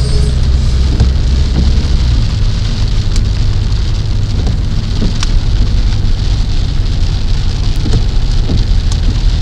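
Rain on a car's windshield and roof heard from inside the moving car, over a steady low rumble of the car driving on a wet road, with a few sharp ticks.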